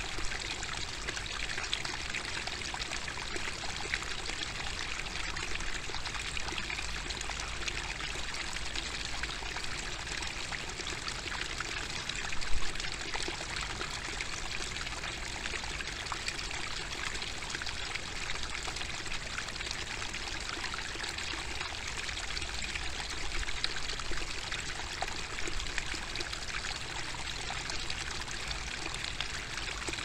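Small rocky stream babbling, with a thin fall of water pouring and splashing between stones into a shallow pool; a steady trickling rush. One brief louder splash comes about twelve seconds in.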